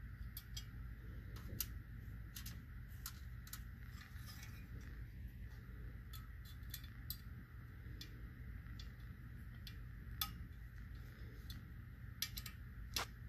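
Scattered small metallic clicks and taps from a screwdriver and fingers working screws into a black metal Raspberry Pi case, irregular and a few seconds apart, over a steady low hum.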